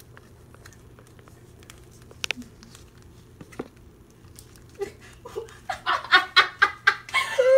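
A few light clicks of photocards being handled and slid into plastic binder sleeves. About five seconds in, laughter breaks out in rapid, rhythmic bursts that grow louder toward the end.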